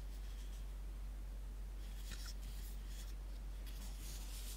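Faint rubbing and scuffing of hands handling a small wooden-cased radio, a few short scratchy rubs about two seconds in and again near the end, over a steady low hum.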